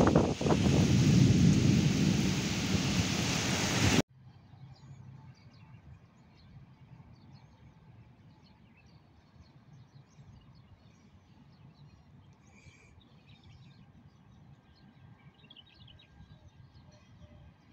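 Storm noise of wind and heavy rain, with gusts buffeting the microphone, stops abruptly about four seconds in. It gives way to a faint outdoor background with scattered faint high chirps.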